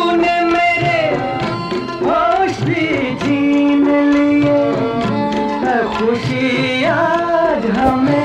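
Hindi film song playing: a gliding melody line over a tabla rhythm, with one long held note in the middle.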